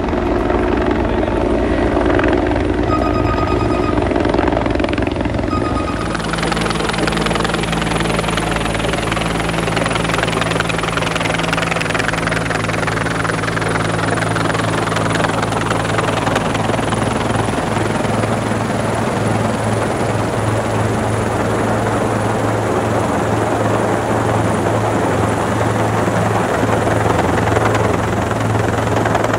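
Rescue helicopter hovering on a hoist lift, its rotor and turbine engine running steadily. Its sound changes at about six seconds in, where a steady low hum comes through.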